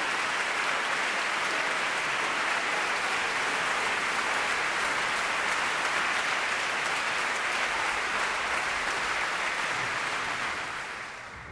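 Audience in a concert hall applauding steadily, the clapping dying away near the end.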